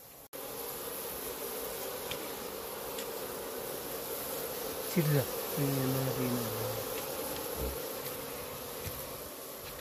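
Steady insect buzzing throughout. About five seconds in, a low voice-like sound slides down and then holds for about two seconds.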